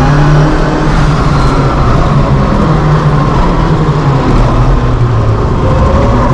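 Lancia Delta Group A rally car's turbocharged four-cylinder engine running hard under load, heard from inside the stripped cabin, its note rising and falling as the car is driven at speed. Road and tyre noise hiss underneath.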